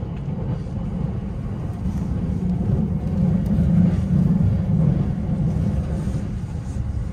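A commuter train carriage running along the track, heard from inside the car: a steady low rumble that swells somewhat about halfway through and then eases back.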